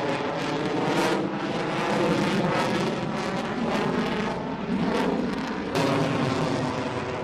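F-22 Raptor's twin Pratt & Whitney F119 turbofan engines in a flying display: a loud, continuous jet roar with layered engine tones, shifting abruptly in level a few times.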